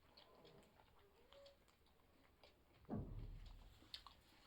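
Faint mouth noises of people chewing pizza, with small scattered clicks and a soft low thump about three seconds in.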